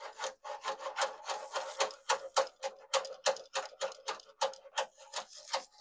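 Steel brake cable being pushed and pulled by hand through a 1949 VW Beetle floor pan's brake-cable conduit tube: quick rasping strokes, about three a second, with a steady ringing note underneath. It is rodding out a buildup of old grease in the tube.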